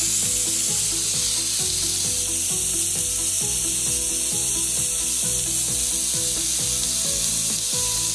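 Thick-cut beef steak sizzling steadily as it sears, now on its second side after its single flip, over background music with a steady beat.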